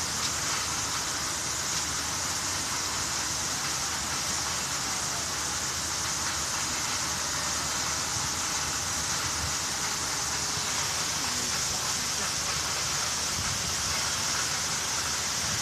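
Bridge-deck water curtain fountain: a steady hiss of falling, splashing water.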